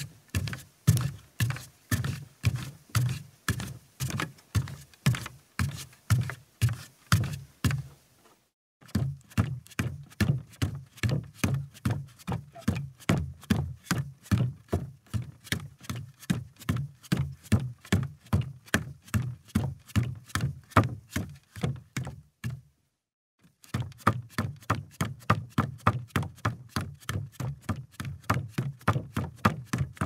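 Footsteps walking on a wooden floor at a steady pace, about two steps a second, each step a low thud. The walking breaks off briefly twice, about eight seconds in and again after about twenty-three seconds.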